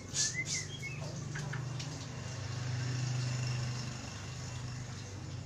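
Oriental magpie-robin giving a few sharp chirps and a short whistled note in the first second, over a steady low hum that grows louder around the middle and then fades.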